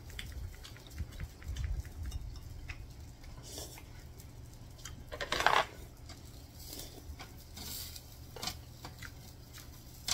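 Metal tongs clicking and scraping on a tabletop grill's wire grate as grilled pork pieces are moved, with scattered light clinks. A brief, louder rush of noise comes about halfway through.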